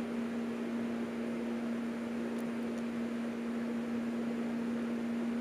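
Electric sewing machine running steadily with an even, unbroken hum as it stitches a neckline facing onto a kurti.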